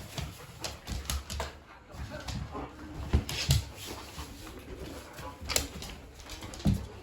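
Dogs whining and moving about, with scattered short knocks and thumps.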